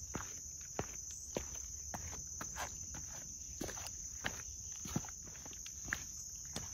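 Footsteps of a hiker on a dirt trail at a steady walking pace, over a continuous high-pitched drone of insects.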